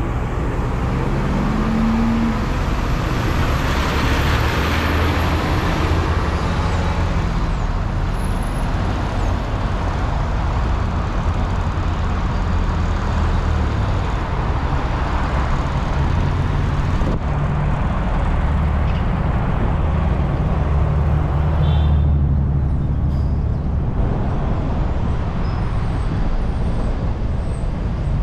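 Car driving in city traffic: a steady low engine and road rumble, with other vehicles passing and a louder swell about four seconds in.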